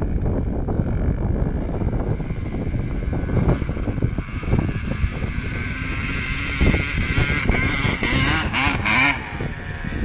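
Motor vehicle engine revving, its pitch rising and falling several times in the second half, over a constant low rumble.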